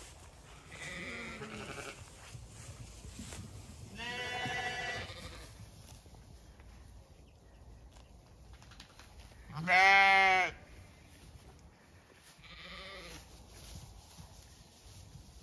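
Zwartbles sheep bleating: four separate bleats, the loudest about ten seconds in, the first and last faint.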